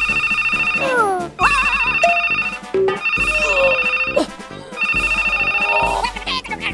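A trilling electronic ring like a telephone ringtone, sounding in four bursts of about a second each, with short sliding whistle-like cartoon tones between the bursts, over background music.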